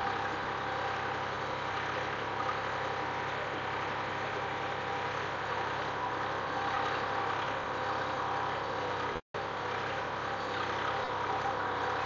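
Tractor engine running steadily under load as it pulls a two-disc hydraulic plough through dry soil. The sound cuts out for a split second about nine seconds in.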